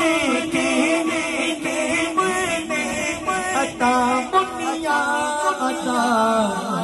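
Unaccompanied men's voices chanting a devotional wedding song through a microphone. A lead voice sings long, wavering melodic phrases over a held lower note.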